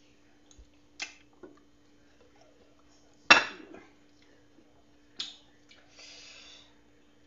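Ceramic bowl clinking against the plate under it as food is picked out of it by hand: three sharp clinks, the loudest about three seconds in, then a short scrape near the end. A faint steady hum runs underneath.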